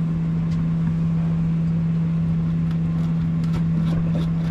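Steady low mechanical hum with a rumbling noise beneath it.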